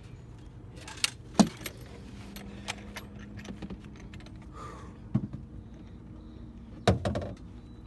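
Metal fishing gear clinking and knocking a few separate times as it is handled while the catfish is readied for weighing, the loudest knocks about a second and a half in and near the end.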